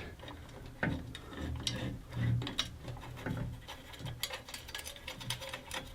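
Light clicks and taps of small metal parts being handled: the M6 table bolts and washers being picked out and positioned under a bandsaw table, with a quick run of clicks near the end.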